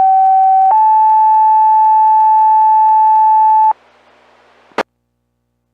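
Two-tone sequential fire pager alert tones received over a VHF low-band radio. A lower steady tone lasts under a second, then a slightly higher tone holds for about three seconds; this tone sequence sets off the fire department's pagers. A second of open-carrier hiss follows, ending in a short squelch-tail burst as the transmission drops.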